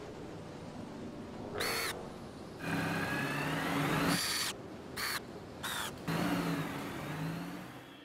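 Animated robot's sound effects: short whirring chirps with high, bending tones, and a longer whir that rises in pitch over a low hum, like small servo motors.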